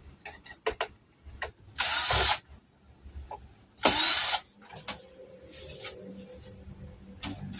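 Cordless drill-driver running in two short bursts of about half a second each, spinning out the screws of a flat-screen TV's plastic back cover. A few light clicks come before them.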